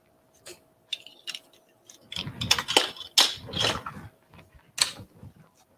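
Measuring spoons clinking and jangling as one is picked out and worked into a box of baking soda: a few light clinks, then a busy cluster of clattering and scraping about two seconds in, and one more clink near the end.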